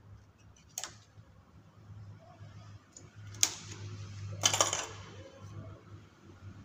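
Metal needles on a chunky knitting machine's needle bed clicking as they are handled by hand: a click about a second in, a sharper one past three seconds, and a short clatter around four and a half seconds.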